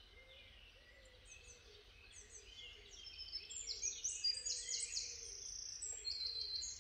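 Songbirds singing in the morning chorus, many short chirps and trills from several birds, growing louder about halfway through, with a quick repeated phrase near the end.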